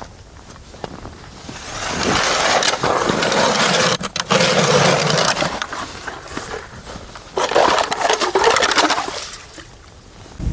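A hand-cranked ice auger grinds and scrapes as it drills through snow and thin ice of frozen slush. The scraping comes in several spells with short pauses between them.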